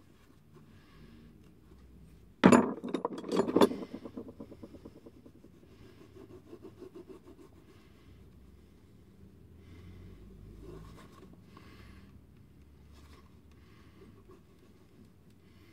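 Pen scratching and rubbing on a leather insole as it is marked out, in short strokes. About two and a half seconds in, a loud, brief clatter of several sharp knocks.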